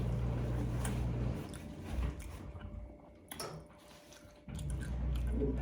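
Close-up chewing of a crunchy taco egg roll, with a few short crunches and mouth clicks, the strongest about three seconds in. A low steady hum underlies it, dropping out for about three seconds and then returning.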